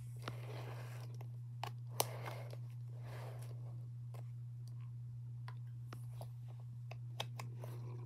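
Windmere DF-7 7-inch table fan running with a steady low motor hum, while a hand handles its plastic base, making rustling scrapes and a few sharp clicks, the loudest about two seconds in.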